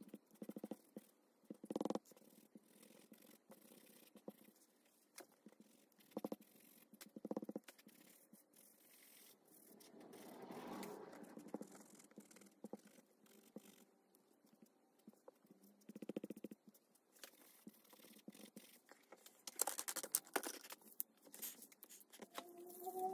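Faint, intermittent dabbing and rubbing of a small sponge through a paper stencil onto leather, with a burst of paper crackling near the end.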